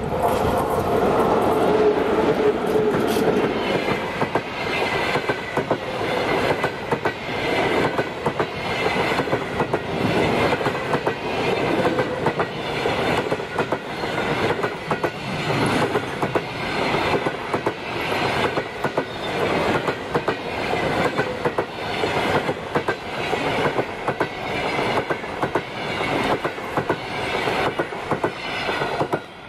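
A locomotive-hauled passenger train passing close by: the electric locomotive goes past first with a steady hum, then the coaches follow, their wheels knocking over the rail joints in a steady, repeating rhythm.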